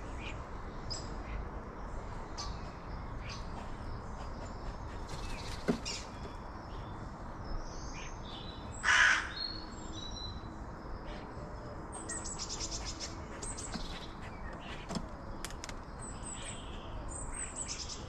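A crow gives one loud, harsh caw about nine seconds in, while small garden birds chirp, with a rapid trill about twelve seconds in.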